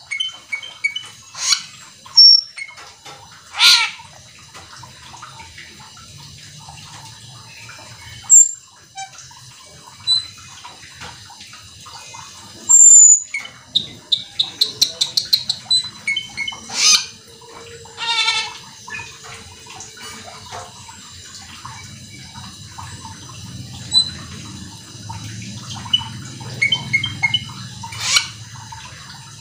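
Asian glossy starling (cucak keling) singing in irregular bursts: harsh rasping calls, short sharp whistles and pitch glides, and a quick run of clicking notes about midway.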